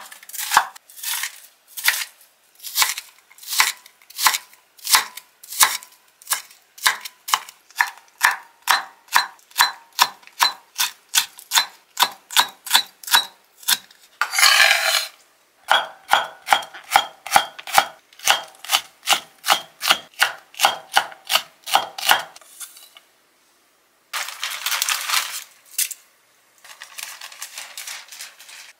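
Kitchen knife chopping green chili peppers on a wooden cutting board in quick, even strokes, a bit over two a second, with a brief scraping noise about halfway. The chopping stops about two-thirds of the way through, followed by two short stretches of rustling.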